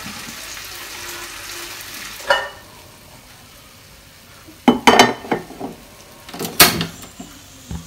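A saucepan being set down on a gas stove's metal burner grate, with sharp clanks in two clusters in the second half. Before that comes a steady soft hiss that stops abruptly with a click after about two seconds.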